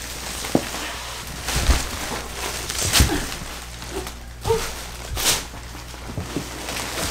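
Plastic wrapping crinkling and rustling as it is pulled off a rolled foam mattress that is being unrolled, with a few sharper crackles or thumps, the loudest about three and five seconds in.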